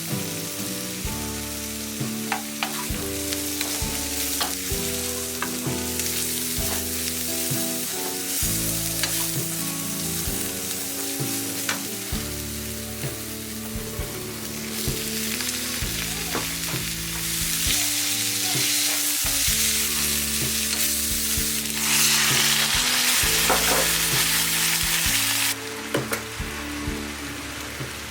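Food sizzling as it fries in a pan and is stirred. The sizzle grows louder in the second half, then drops off suddenly near the end.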